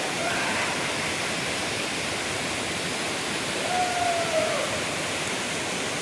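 Waterfall pouring down a rock face onto wet rock: a steady, dense rushing of falling water.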